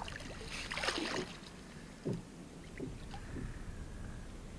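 Shallow water sloshing and splashing around a wading angler's legs as he shifts his stance, with a splashy rush about a second in and a sharper low splash just after two seconds, then a couple of smaller ones.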